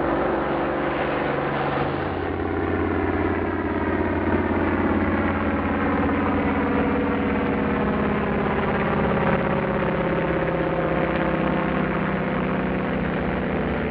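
Propeller aircraft engine droning steadily, its pitch wavering slowly.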